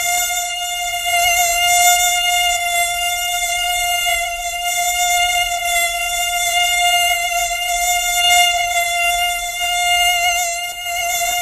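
Mosquito wingbeat whine: one steady, high-pitched buzzing tone that wavers slightly in pitch and loudness without a break.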